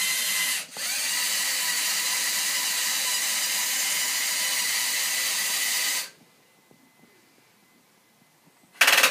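Lego NXT motors and gearbox whirring as they drive the boat's propeller, a steady high whine that dips briefly under a second in and stops about six seconds in. A short loud noise comes near the end.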